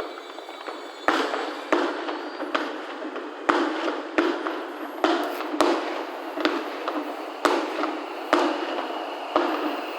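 Fireworks finale: aerial shells bursting one after another, about eleven sharp bangs at roughly one a second, with a steady din of crackle between them.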